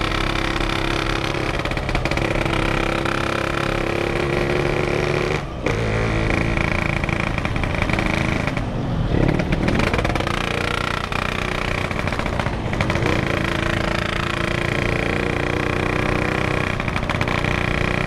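Yamaha RX King's two-stroke single-cylinder engine running while riding through slow traffic, really loud. The engine note drops briefly a few times, about five and a half seconds in, around nine seconds and again around twelve and a half seconds, as the throttle is eased and reopened.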